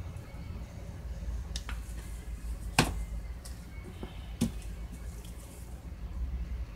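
A few sharp plastic clicks and knocks, the loudest about three seconds in, as squeeze bottles of acrylic paint are handled, set down on the table and picked up, over a low steady hum.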